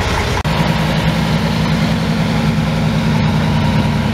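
Vintage heavy truck's diesel engine running steadily at low revs as the truck drives slowly away, a deep, even hum with a short break just under half a second in.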